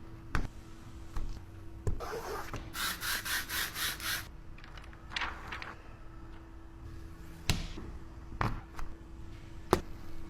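Rubbing strokes of window-tinting work on car window glass: a run of about six quick strokes a couple of seconds in, with a few sharp taps and clicks scattered through, over a faint steady hum.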